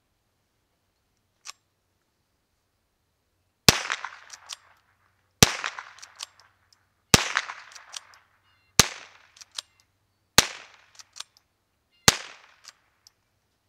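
Six unsuppressed shots from a PWS Summit 22 .22 rimfire rifle, roughly a second and a half apart, each followed by a short echo. The first three are supersonic CCI Mini-Mag rounds and the last three are subsonic American Eagle suppressor rounds. A faint click comes shortly before the first shot.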